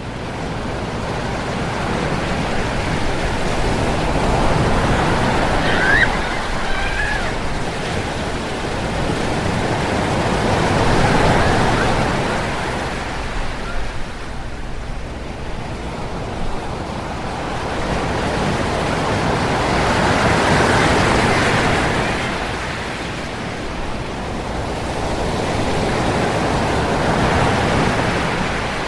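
Waves breaking and washing up on a beach shore, the surf swelling and ebbing in slow surges every six to ten seconds. A brief high chirp sounds about six seconds in.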